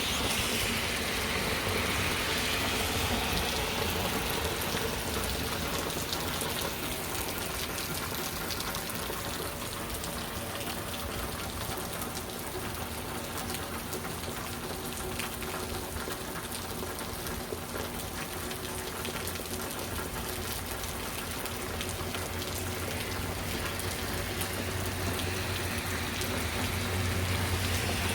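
Heavy rain falling steadily, a dense even hiss of drops hitting surfaces, with a low rumble swelling near the end.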